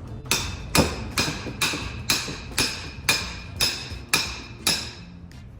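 Hammer striking metal about ten times at an even pace, roughly two blows a second, each with a short metallic ring. The blows are tapping the shaft and seal of a power steering rack home to seat the seal.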